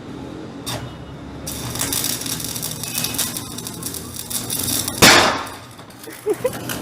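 A loud, sudden bang or crash about five seconds in, over a busy clattering noise.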